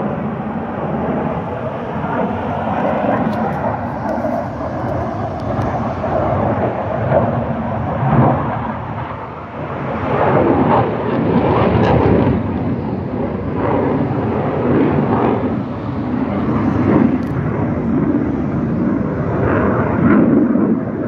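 Fixed-wing aircraft flying overhead: a steady, dense engine noise that dips briefly and then swells again about halfway through.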